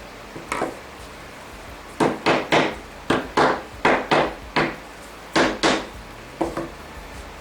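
A hammer striking wood: about a dozen sharp knocks in irregular groups of two or three, each with a short ring.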